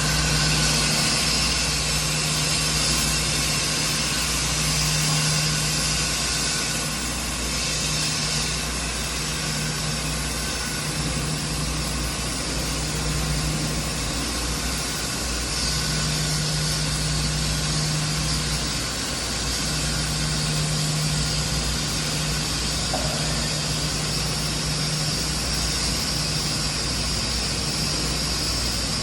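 Machinery running steadily: a low hum with a mid tone that drops out and comes back every few seconds, over a hiss that swells and fades.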